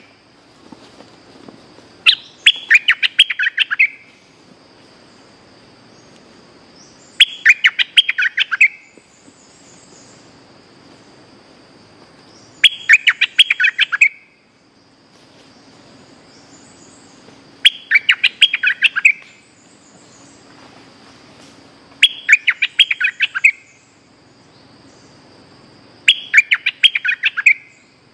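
Caged decoy bulbul singing short bursts of quick, clipped, chattering notes, six phrases spaced about every five seconds, over a faint steady high hum.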